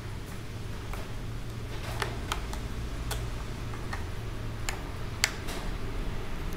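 Scattered light clicks and taps, about six of them with the sharpest about five seconds in, as the removable padding of a KYT Galaxy half-face helmet is pressed back into its plastic shell. A steady low hum runs underneath.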